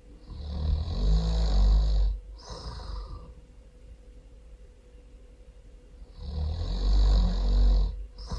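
A person snoring really loud: two long, rumbling snoring inhales about six seconds apart. The first is followed by a short, breathy exhale.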